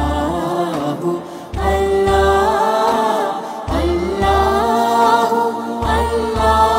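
Background music: a sung vocal melody over a deep, pulsing bass beat.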